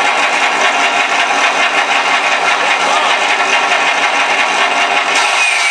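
Simulated P-51 Mustang piston-engine sound from a ShockWave sound module, played through speakers mounted in an FMS 1700mm electric RC P-51 Mustang with its motor and propeller running, a steady rasping engine note. Near the end the sound shifts and a whine starts falling in pitch.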